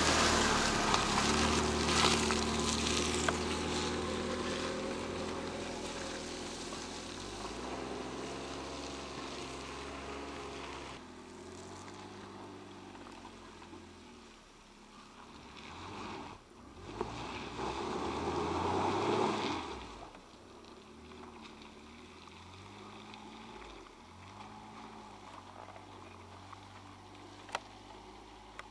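Jeep Wrangler engine running as it drives away up a muddy off-road trail. It is loud at first and fades as it moves off, then swells louder for a few seconds partway through, with the revs rising and falling as it climbs.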